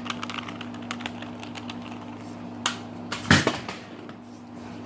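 Plastic Rubik's Cube being handled and its layers turned, a run of quick light clicks, then a louder knock about three seconds in.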